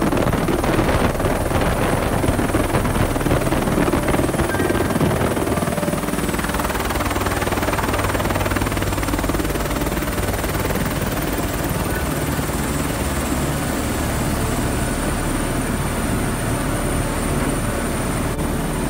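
Turbine helicopter running close by, loud and steady. A thin high turbine whine sits over the rotor noise and dips slightly in pitch about six seconds in.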